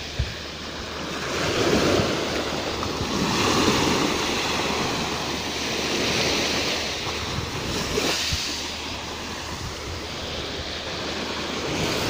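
Sea surf: small waves breaking and washing up a pebble-and-sand beach, surging and falling back about every two seconds, with wind buffeting the microphone.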